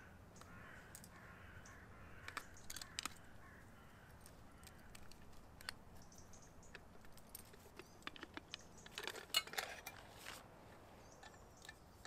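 Faint, scattered clicks and clinks of camping cookware being handled: an insulated container and a cup knocked and opened, with a busier run of clinks about nine to ten seconds in.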